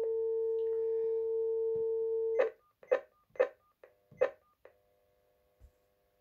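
Cordless phone handset with a steady dial tone from the GSM fixed-line terminal, which stops about two and a half seconds in as the keypad is pressed. About six quick key presses follow, each a click with a short beep, then only a faint hum on the line.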